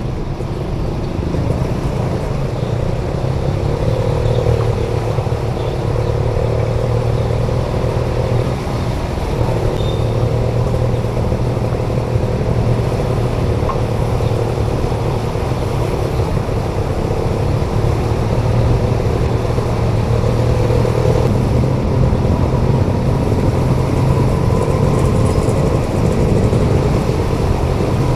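Slow-moving city traffic in a flooded street: car and motorcycle engines running steadily as vehicles push through the water.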